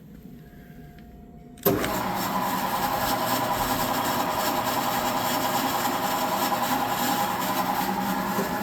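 Wells Index 860 milling machine's 2 hp three-phase spindle drive switched on about two seconds in, starting abruptly and then running steadily with a mechanical whir.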